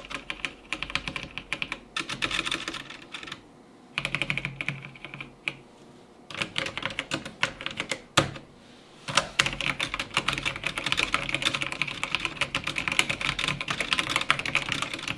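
Typing on a mechanical keyboard with Kailh linear red switches in an aluminum chassis: rapid keystroke clacking in several bursts with short pauses between them, then continuous fast typing for the second half.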